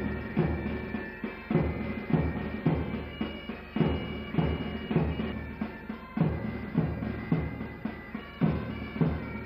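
Military pipe band: bagpipes with steady drones playing a tune over a drum beaten in a regular rhythm, about two strokes a second.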